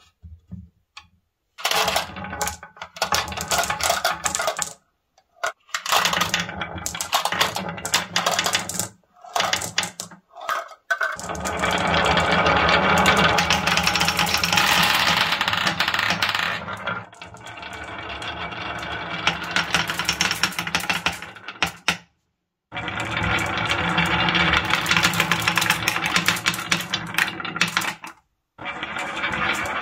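Glass marbles rolling and clacking against each other along a wavy groove cut in a wooden board. The clatter comes in several runs, broken by short silent gaps.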